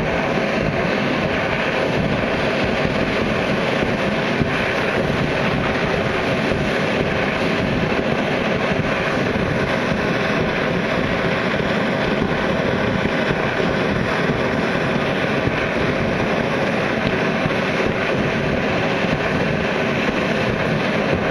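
Hot-spring geysers spouting, a steady rush of spraying and splashing water.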